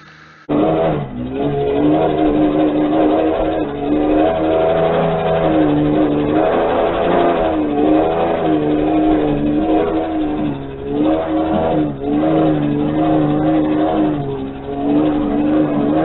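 Ford 250 cross-flow inline-six engine in a 1976 F250 4x4 running hard at high revs, pitch rising and falling as the truck spins donuts in mud. The revs ease off briefly a few times.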